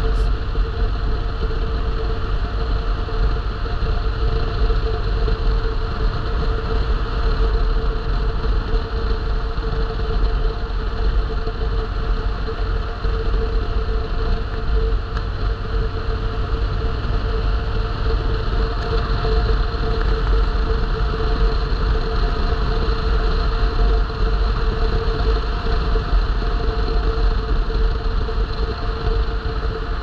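Vehicle under way: a steady engine drone and road rumble with a constant hum, unchanging throughout.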